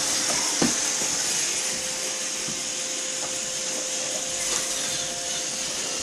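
Roomba robot vacuum running: a steady whir and hiss with a thin steady hum under it, and one light knock about half a second in.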